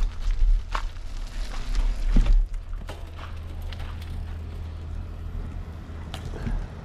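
Wind rumbling over the microphone of a bike-mounted GoPro as the bicycle rolls off, with a few sharp clicks and knocks from the bike. The rumble is louder for the first two seconds or so, then settles lower and steadier.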